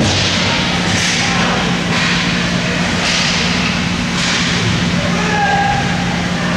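Ice rink game sound: skates scraping and carving the ice in short hissing strokes over a steady low hum, with a brief pitched call near the end.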